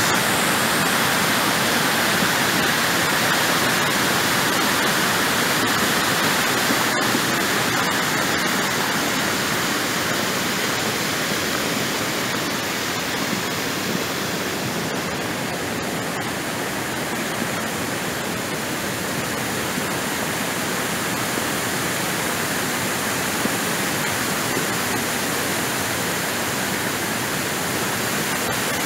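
Muddy rain floodwater rushing over a washed-out dirt road and pouring down its broken edge, a steady rush that eases a little in the middle and swells again near the end.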